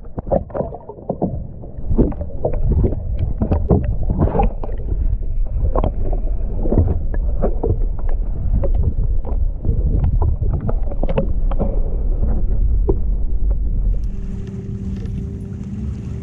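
Irregular knocks and clatter on a plastic pedal fishing kayak over a low rumble. About two thirds of the way through, this gives way to a steadier hum with a faint whistling tone.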